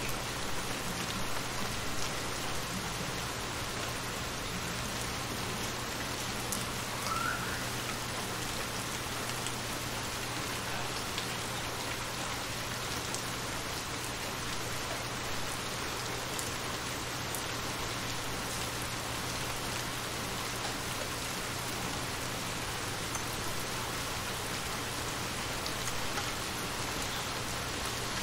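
Steady rain falling onto shallow water, an even, unbroken hiss of drops hitting the surface.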